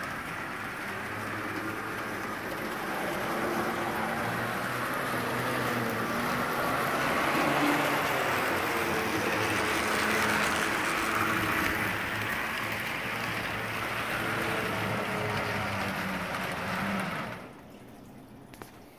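HO-scale model train running on sectional track: a steady rolling rattle of wheels on rail with a low motor hum, loudest about ten seconds in. The sound drops away sharply near the end.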